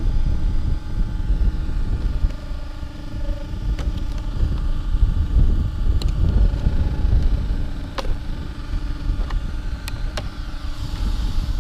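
Steady low wind rumble on the microphone, with several sharp plastic clicks as hands pull the body clips from an Arrma Typhon 6S buggy and lift its body shell.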